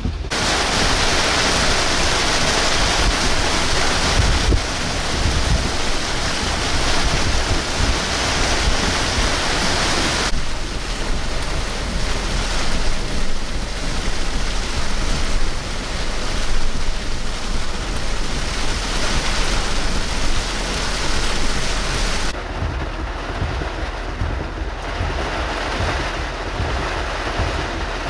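Tropical-storm wind and rain with breaking surf: a steady rush of noise, with wind buffeting the microphone, that shifts abruptly several times as the scene changes.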